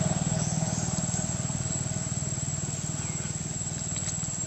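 A motor vehicle engine running with a fast, even pulse, fading steadily.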